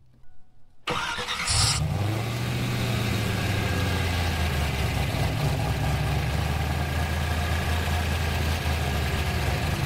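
Hot start of a Pontiac Trans Am's LS1 V8 with a new MSD DynaForce starter. About a second in, a brief crank lasts under a second, then the engine catches and settles into a steady idle.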